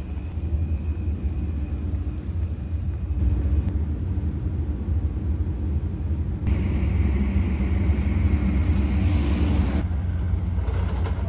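Steady low rumble of a moving vehicle, with a louder rushing hiss from about six and a half to ten seconds in.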